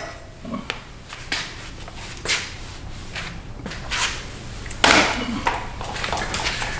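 Scattered metal clinks and knocks of tools and mower deck parts being handled, a handful of separate hits at uneven intervals, the loudest about five seconds in.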